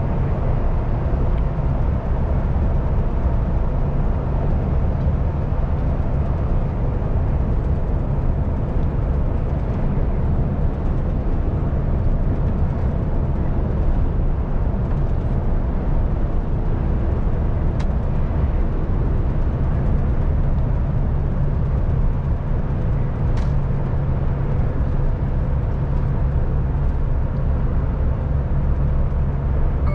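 MAN TGX truck driving at a steady pace: an even drone of the diesel engine with tyre and road noise, with two faint clicks past the middle.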